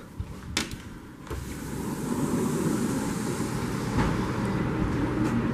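A few sharp clicks, then steady traffic noise from the street below that comes up about a second in and holds.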